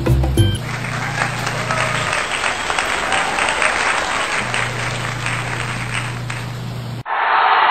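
Applause: a crowd clapping steadily over a low steady hum that drops out for a couple of seconds midway. Near the end it cuts off suddenly and gives way to a duller crowd-and-voices sound.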